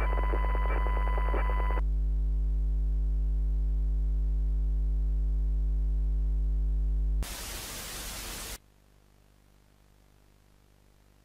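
Loud low electronic drone with a steady high tone and rapid clicking over it; the tone and clicks stop about two seconds in and the drone carries on alone. About seven seconds in it gives way to a burst of loud static lasting a second and a half, which cuts off suddenly to a faint hiss, like a broadcast signal going dead.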